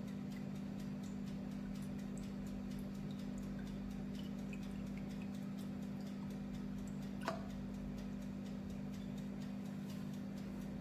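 A steady low hum with faint, regular ticking running under it, and one slightly sharper click about seven seconds in.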